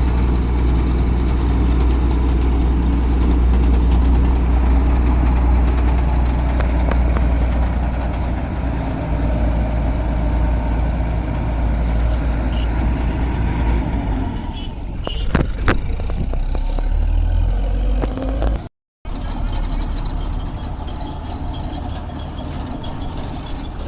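Combine harvester's diesel engine running with a steady, heavy low rumble. The rumble eases about 14 seconds in, a few sharp knocks follow, and the sound cuts out for a moment a little before 19 seconds, as at an edit, then the engine noise carries on.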